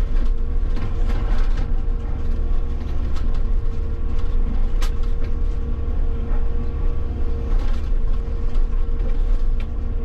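Hitachi 160 excavator's diesel engine running steadily under hydraulic load, heard from the operator's seat, with scattered sharp knocks of the attachment working against rock.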